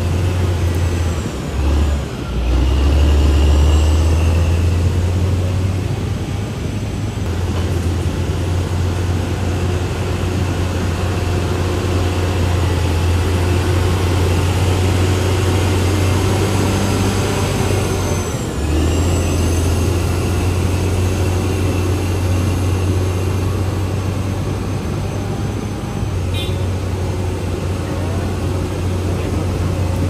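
CAT D6R XL bulldozer's diesel engine running steadily under load. Its low note drops briefly about two seconds in, then rises louder, and dips once more a little after halfway.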